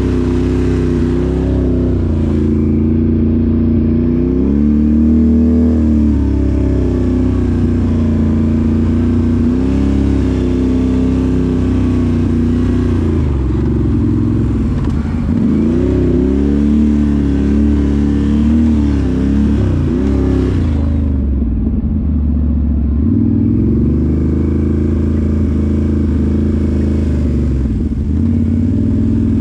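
A Can-Am 1000cc off-road vehicle's engine running under way on a trail, its revs rising and falling as the throttle is worked, with a couple of longer lets-off in the second half.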